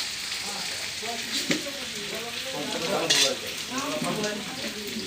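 Food sizzling as it fries in hot oil, stirred in the pan, with a couple of short sharp scrapes of the spoon against the pan.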